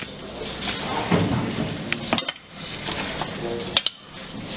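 Metal tongs clinking against a metal tray while pieces of a large grilled sandwich are set in place. There are sharp clinks in quick pairs, one pair about two seconds in and another near the end.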